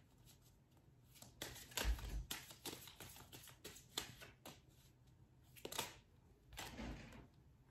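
A deck of tarot-style cards being shuffled in the hands: irregular soft swishes and slaps of card against card. The loudest flurry, with a low thud, comes about two seconds in, and further bursts come around four, six and seven seconds.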